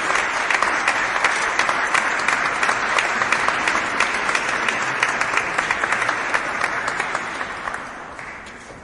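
Crowd applause in an echoey hall: many hands clapping densely together, dying away over the last two seconds or so.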